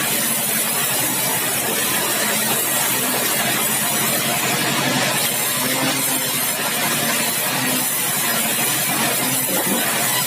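Sawmill machinery running steadily: a continuous loud, noisy hiss with an engine hum beneath it.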